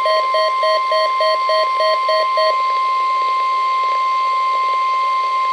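NOAA Weather Radio warning alarm tone, the 1050 Hz alert tone sent out for the weekly test of weather alert receivers, sounding as one steady, loud, high-pitched tone over a radio broadcast. For the first two and a half seconds a lower beep pulses over it about four times a second, then stops, leaving the steady tone alone.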